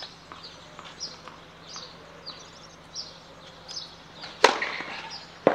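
Birds chirping faintly, then a tennis ball struck hard by a racket on the serve, followed about a second later by a second racket hit as the ball is returned.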